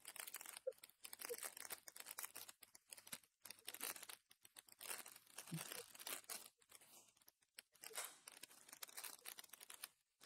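A foil trading-card pack wrapper being torn open and crinkled by hand: faint, irregular crackling and rustling.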